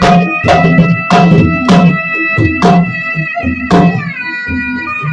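Music with repeated drum strikes over a held melodic line; the heavy drum strikes stop about four seconds in while the melody goes on.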